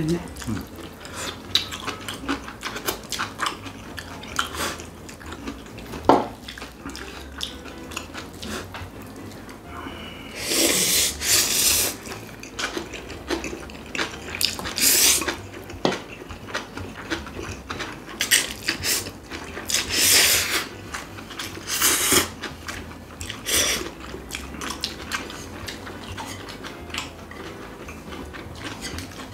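People eating spicy bibimmyeon noodles: several loud slurps of a second or two each from about a third of the way in, between the small clicks of chopsticks and spoons against ceramic bowls and a pan, with chewing.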